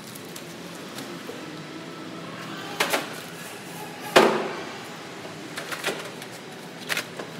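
Wire shopping carts loaded with drink cases rolling over a concrete floor: a steady rattling rumble with a few metal clanks. The loudest knock comes about four seconds in, and smaller ones come near the end.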